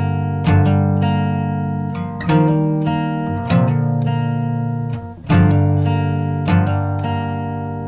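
Music: a guitar strumming slow chords, a new chord every second or two, each left to ring and fade.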